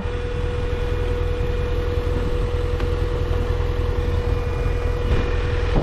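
BMW F700GS parallel-twin engine running steadily at low revs.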